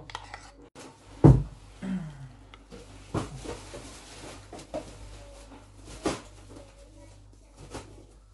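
Dishes and cutlery clattering in a small room: one sharp, loud knock about a second in, then a few lighter knocks.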